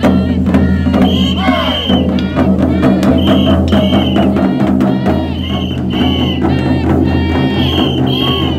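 Festival parade music with drumming and clicking percussion, voices shouting over it, and short high notes repeating every second or two.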